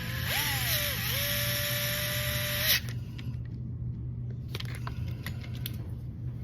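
Small electric screwdriver whirring as it drives a screw into the metal chassis brace; its pitch dips once under load about a second in, then holds steady before it stops a little under three seconds in. A few faint light clicks follow.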